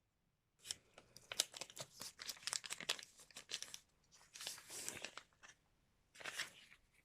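Product packaging being opened by hand: a run of crinkling and crackling, then a smoother tearing sound about four and a half seconds in, and a short burst of crinkling near the end.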